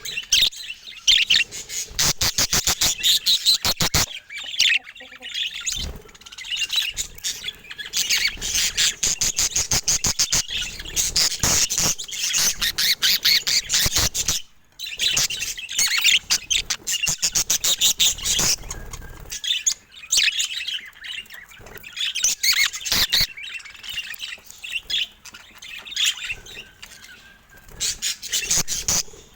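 Budgerigars chattering and chirping almost continuously, a dense run of fast high chirps and warbles with many sharp clicks mixed in, pausing briefly about halfway through.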